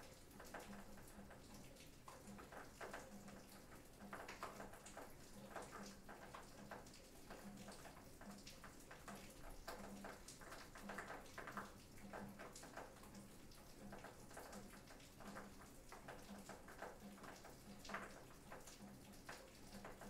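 Faint rain on an aluminium roof: a steady soft hiss with irregular pattering drops.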